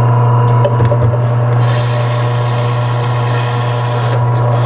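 A 10-inch, 320-watt electric meat slicer running with a steady hum. After a few clicks, a loud rasping hiss starts about a second and a half in and stops about four seconds in, as the spinning blade cuts through a semi-frozen chicken breast pushed along on the carriage.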